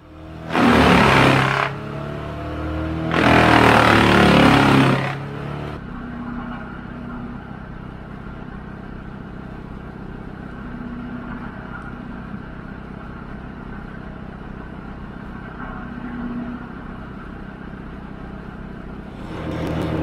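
Wood chipper running, with two loud stretches of rough grinding in the first five seconds as it chews through wood, then a steady engine drone that grows louder again near the end.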